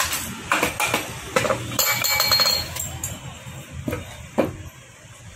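Steel engine parts clinking and knocking together as the gearbox shafts and gears in a Hero Splendor Plus motorcycle's opened crankcase are handled, with a quick ringing metallic rattle about two seconds in and two sharp clicks near the end.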